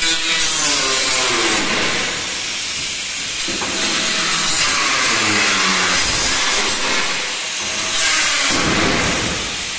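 Handheld angle grinder with a cut-off disc cutting through a corrugated steel decking sheet: a loud, steady hiss of the disc in the metal, with the motor's pitch dipping and rising as the cut loads it. The sound falls away near the end as the cut stops.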